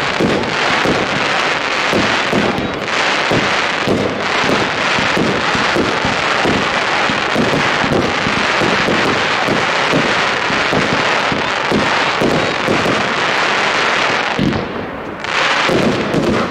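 Aerial fireworks display: a dense, continuous run of rapid bangs and crackling shells going off one after another. It eases briefly about a second and a half before the end, then picks up again.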